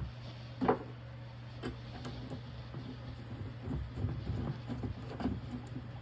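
Knocks and clicks from a door fitted with a door closer being handled: one sharp knock about a second in, then scattered softer clicks and taps, over a steady low hum.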